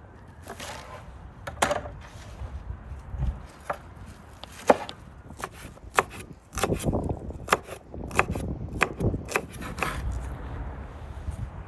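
Steel cleaver chopping green onions on a wooden cutting board: a run of irregular sharp knocks of the blade on the board, about one to three a second.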